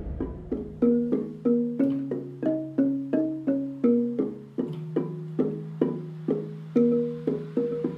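Instrumental outro music: short, evenly spaced notes, often two at once, about three a second, over a steady low held tone that shifts pitch a couple of times.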